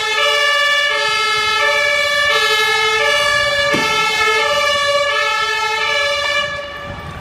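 German police two-tone siren (Martinshorn) sounding, a high and a low tone alternating steadily about once every half second or so; it fades and stops near the end.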